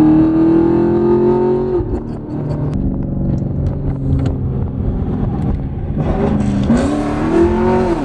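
Chevrolet Camaro SS 1LE's 6.2-litre V8 heard from inside the cabin, accelerating hard. The engine rises in pitch for about two seconds, then drops as it comes off the throttle. It runs steadier and lower for a few seconds, then pulls up in pitch again near the end and drops once more.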